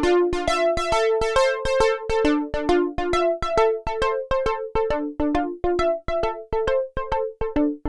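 Oberheim OB-X8 analog polysynth playing a dry plucked patch as a fast repeating arpeggio, about four notes a second. Each note has a sharp attack and fades quickly.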